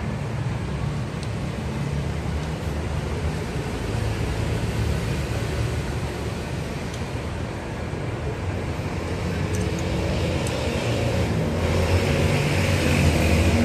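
Steady low rumbling hum in the background, growing a little louder in the last couple of seconds.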